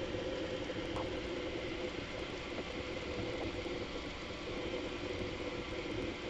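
Bambu Lab A1 3D printer running mid-print, sped up: a steady mechanical whir of its fans and motors with a wavering hum.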